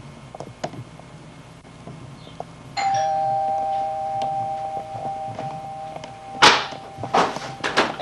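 Doorbell chime struck once about three seconds in, its two tones ringing on for several seconds. A few light clicks come before it, and a loud thump with a few knocks comes near the end.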